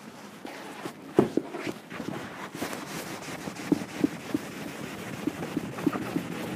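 Cloth rag buffing wax polish on a leather boot, swishing back and forth in a shoe-shine motion. A sharp knock comes about a second in, and a run of light knocks near the end.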